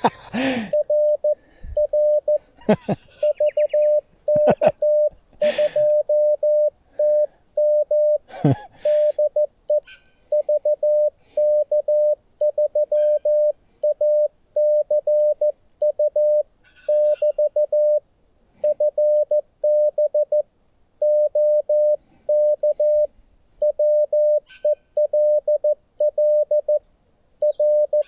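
Morse code (CW) from the Xiegu G90 transceiver: a single steady tone of about 600 Hz keyed on and off in dots and dashes. There are a few short knocks in the first several seconds.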